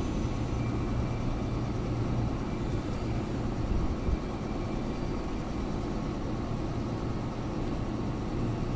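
Yellow 105 series electric train standing at the platform, its equipment giving a steady low hum.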